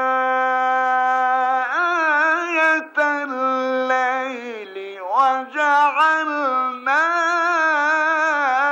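A male voice chanting the Quran in slow, melodic tajweed recitation: long held notes with ornamented turns of pitch, briefly breaking off around three and five seconds in.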